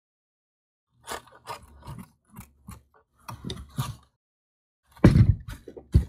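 Scissors snipping through a coarse blue fibre filter pad, about a dozen short irregular cuts over three seconds, then a louder thump and rustle about five seconds in.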